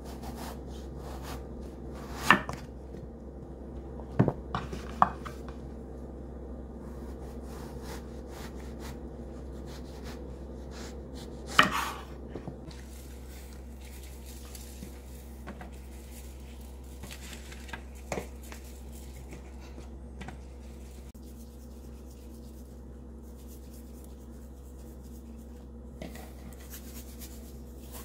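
Chef's knife slicing lengthwise through an eggplant, the blade knocking on the wooden cutting board a few times. Then salt shaken from a shaker onto eggplant slices on a metal pan, a faint sprinkling hiss with a few small clicks, over a steady low hum.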